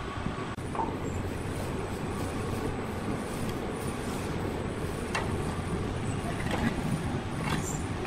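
Steady low mechanical hum of sawmill machinery with a thin high whine. In the second half, a few sharp scrapes of a steel shovel dragged across a sawn wooden slab, clearing sawdust off it.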